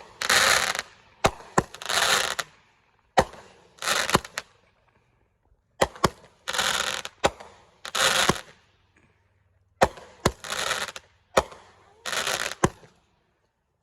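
Consumer fireworks going off one after another: about seven short hissing whooshes, each lasting roughly half a second, mixed with a dozen or so sharp cracks and pops between them.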